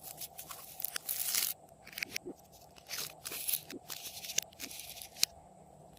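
Crushed hard candy crunching as glossy slime is worked by hand, in irregular crackly bursts with a sharp crack about five seconds in.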